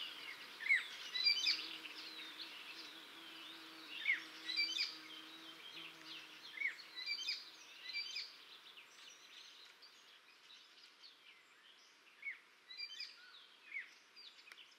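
Blyth's reed warbler singing: an unhurried song of short phrases of clicks and quick sweeping notes, repeated about once a second and growing fainter toward the end.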